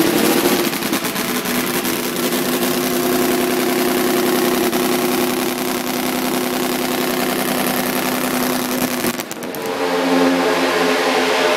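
Classic MV Agusta racing motorcycle engine running loudly at steady revs, holding a constant note. A little over nine seconds in it dips briefly and comes back at a different pitch.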